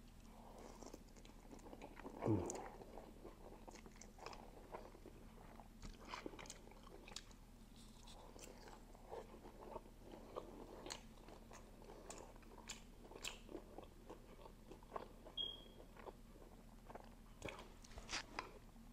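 Faint, close-miked eating sounds of spicy instant noodles: wet chewing with many small mouth clicks and smacks, and a louder slurp with a falling pitch about two seconds in as a forkful of noodles is drawn into the mouth.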